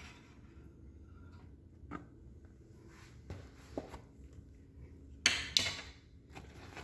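Microwave oven running with a faint steady hum, with a few light clicks and a brief louder clatter about five seconds in.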